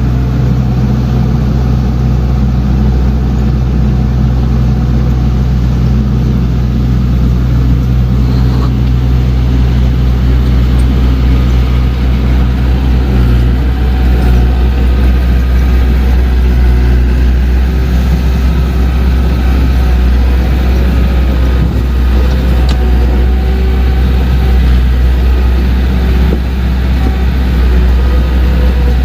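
Diesel engine of heavy earthmoving equipment running steadily under work, a loud low rumble with no pauses.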